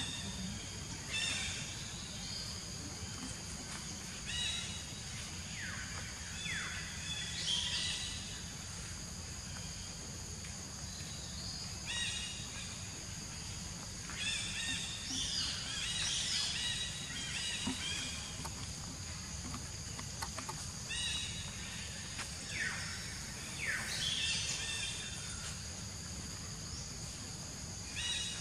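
Outdoor woodland ambience: short, repeated bird calls, some falling in pitch, every few seconds over a steady high-pitched drone and a low background rumble.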